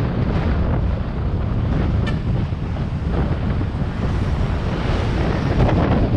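Wind buffeting the microphone of a camera moving along a road: a steady, dense rumble with no breaks.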